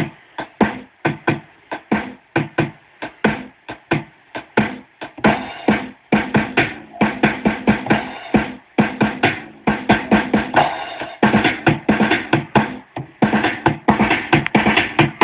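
Instrumental background music with a steady beat of sharp hits, about three a second, growing fuller about six seconds in.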